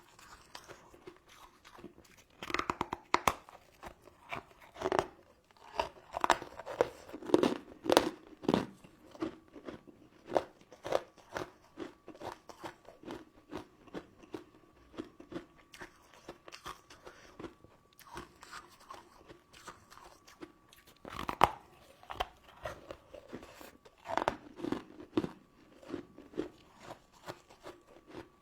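Close-miked eating of crunchy sugar-crusted candy: crisp crackling crunches and chewing, with clusters of louder bites early on and again past the middle. A faint steady hum sits underneath.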